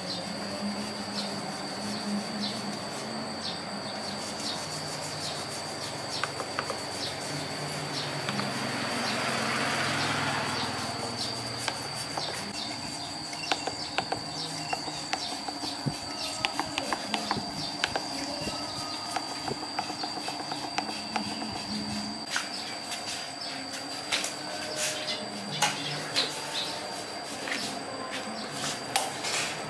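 Workshop hand-work sounds: scattered clicks and light knocks over a steady high-pitched whine and a low hum, with a hiss that swells and fades about a third of the way in. The clicks grow more frequent in the second half.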